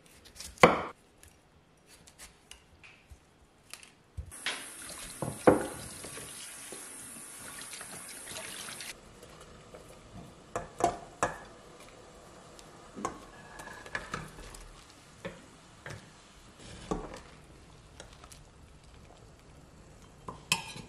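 A knife chops through broccoli onto a wooden cutting board, with sharp knocks near the start. Next comes about five seconds of steady rushing water, then scattered clinks and knocks of kitchen utensils and dishes against a steel pot, with a louder cluster near the end.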